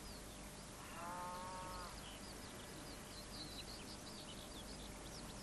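Faint pasture ambience of small birds chirping, with one short pitched animal call about a second in.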